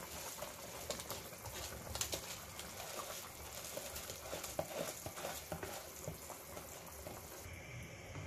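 Chicken stock bubbling at a boil in a pan as soaked rice is tipped in and settles into it, a steady crackle of small pops and splutters. The crackle dulls near the end.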